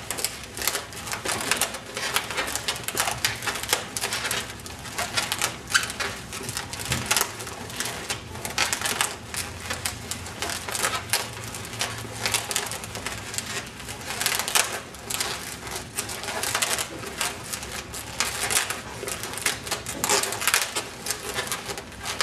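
Latex modelling balloons squeaking and rubbing against each other as three are twisted together by hand into a spiral, in a steady run of short, irregular squeaks.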